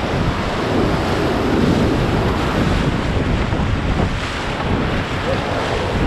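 Whitewater rapids rushing loudly around an inflatable raft, with wind buffeting the camera's microphone in a steady low rumble.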